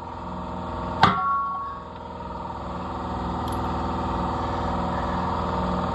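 Air compressor running with a steady drone. About a second in, a single sharp metal clank that rings briefly.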